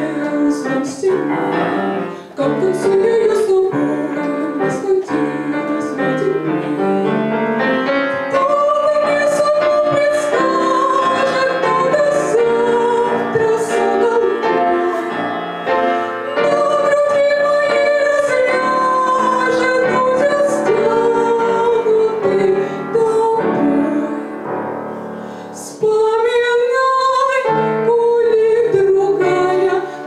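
Young woman's solo classical-style voice singing a Russian romance with vibrato on the held notes, accompanied by a grand piano. The voice drops out briefly near the end, leaving the piano, then comes back in.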